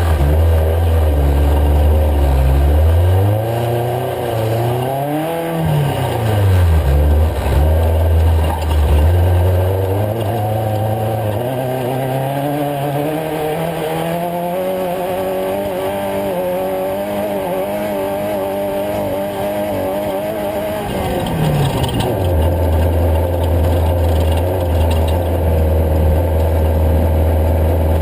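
Off-road race truck engine, running low at first, then revving up and back down over a few seconds. It then pulls through a long, slowly rising climb in pitch for about ten seconds before dropping back to a steady low idle near the end.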